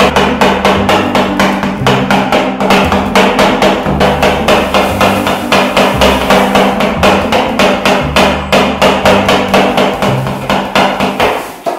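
Two metal spatulas chopping a carrot-and-cream mixture against a frozen steel rolled-ice-cream plate: a fast, steady clacking of about four to five strikes a second, stopping near the end. Background music with a bass line plays underneath.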